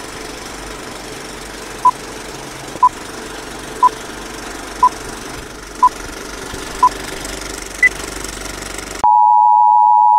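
Stock film-leader countdown sound: an old film projector clattering and hissing, with a short beep once a second (six in all) and one higher beep near the end. About nine seconds in the clatter cuts out and a loud, steady test tone starts, the tone that goes with colour bars.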